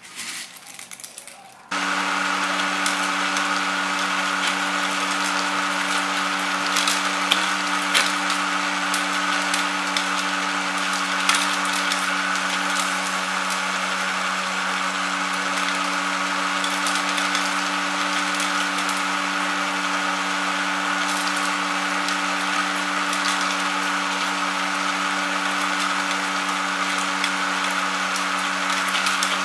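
Motor-driven kuaci seed-cracking machine running with a steady hum, with a scatter of small crackles and clicks as the seed shells are cracked. It comes in abruptly just under two seconds in, after a quieter moment.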